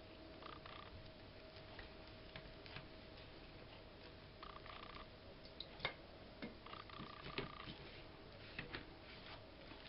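Faint handling sounds as yeast dough is pressed and levelled by hand in silicone baking molds on a metal baking tray: scattered soft ticks and small taps, most of them in the second half, over a faint steady hum.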